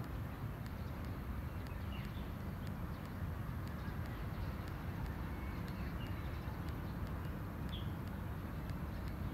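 Outdoor park ambience: a steady low rumble with a few short bird chirps, about two, six and eight seconds in.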